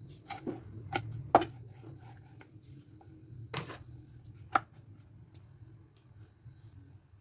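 Thin rolled dough being handled by hand on a wooden board: about five sharp taps and knocks, loudest about a second and a half in and again about four and a half seconds in, over a low steady hum.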